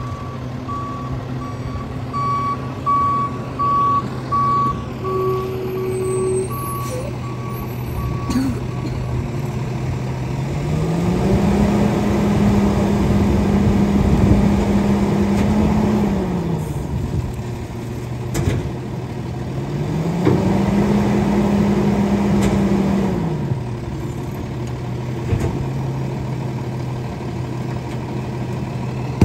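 Rear-loader garbage truck idling with its reverse alarm beeping steadily for the first eight seconds or so; then the engine speeds up and holds high twice for several seconds each, as the rear hydraulic packer cycles to compact the load, and drops back to idle after each.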